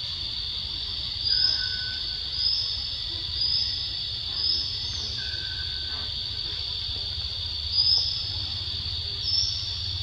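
Steady high-pitched drone of forest insects, with short, louder high chirps repeating about once a second, six times, with a gap in the middle.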